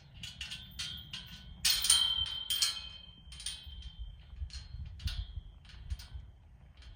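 Metal clinking and jingling: a run of sharp clinks with a ringing high note, thickest and loudest about two seconds in and thinning out after, over a low rumble.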